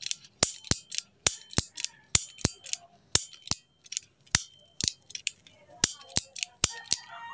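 Piezo igniter on a gas stove burner valve snapping over and over as its shaft is turned, the clicks mostly in pairs about once a second, some with a brief high metallic ring; the freshly repaired igniter is working.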